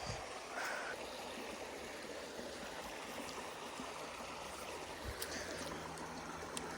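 Creek water running steadily, an even rushing sound with a few faint ticks over it.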